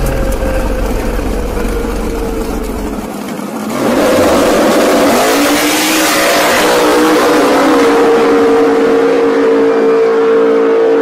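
Drag race car engines running at high revs. About four seconds in the sound jumps louder, with a rushing noise and a held, steady engine note that lasts to the end.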